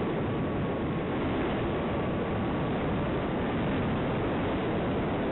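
Steady rush of air over the onboard microphone of a Bixler model plane in flight, with a faint steady high whine from its electric motor and propeller.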